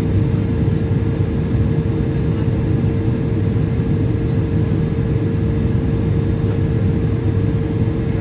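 Cabin noise of a Boeing 777-200ER in flight, heard from a window seat beside the engine: the steady rumble of the GE90 turbofans and airflow, with a constant hum running through it.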